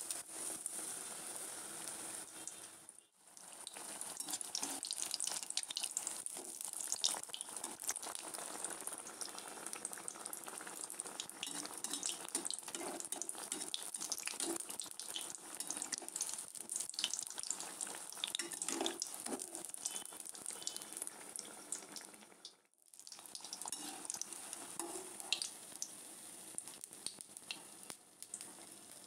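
Batter-coated potato croquettes (aloo chop) sizzling and crackling as they deep-fry in hot oil in a karahi. The sound drops out briefly twice, about three seconds in and again late on.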